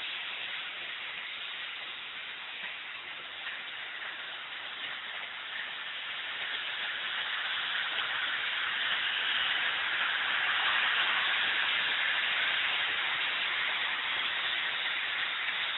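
HO-scale model train running on the layout, a steady rolling hiss without any clear motor tone that grows louder about halfway through.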